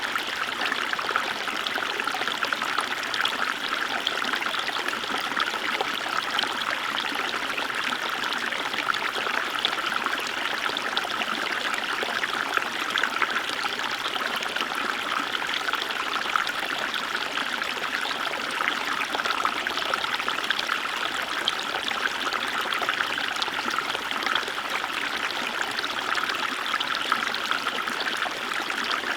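Small river flowing, water rippling and trickling steadily over stones, a dense bright babble without pause.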